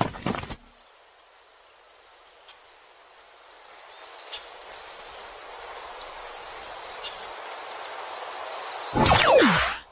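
Forest insect ambience: a steady hiss of insects that grows louder, with bursts of quick, high cricket-like chirps. Near the end a short, loud sound falls sharply in pitch and stops.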